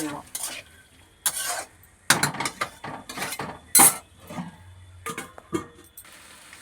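Metal cookware clinking and clattering against a kadai: a run of sharp knocks and clinks, the loudest about four seconds in, as the pan is worked and covered. Near the end a steady sizzle of the vegetables frying takes over.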